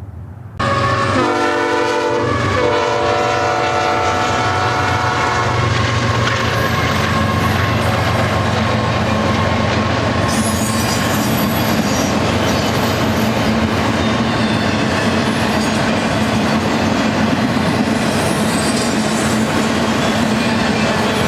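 Freight locomotive's multi-tone air horn sounding two blasts, a short one then a longer one, as the train approaches a grade crossing, followed by the steady rumble and clickety-clack of a double-stack intermodal train's cars rolling past. A faint high wheel squeal joins about ten seconds in.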